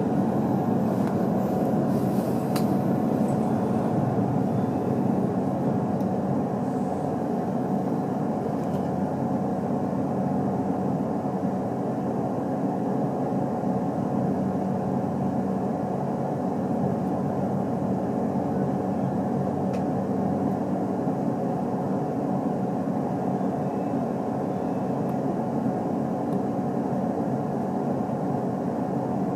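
Steady interior noise of an HC85 hybrid diesel-electric express train, heard from inside the passenger car. It is a constant low hum with a thin steady tone over it. A couple of faint clicks come about two to three seconds in.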